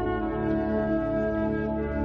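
Slow ambient music of sustained horn-like synthesized tones, held as a steady chord.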